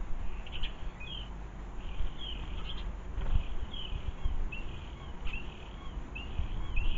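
Small garden songbird chirping, short high notes repeated about once or twice a second, over a low steady rumble of outdoor background noise.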